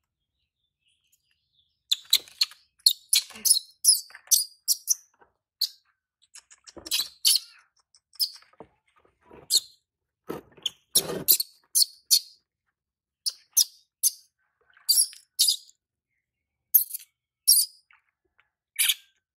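Baby monkey giving short, shrill squeaks over and over while being bathed, a sign of distress at the wash. A couple of duller, lower sounds come about a third and halfway through.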